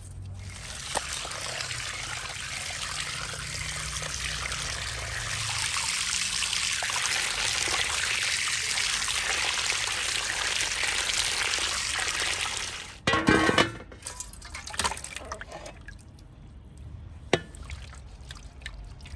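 Water from a garden hose spraying into a plastic bowl as raw lamb testicles are rinsed by hand; the steady hiss grows louder and stops about thirteen seconds in. It is followed by a short loud burst and a few light knocks.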